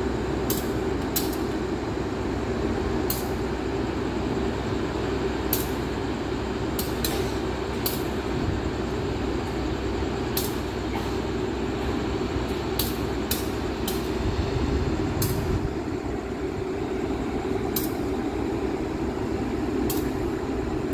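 Steady hum of an idling diesel locomotive at a station, with sharp ticks every second or two.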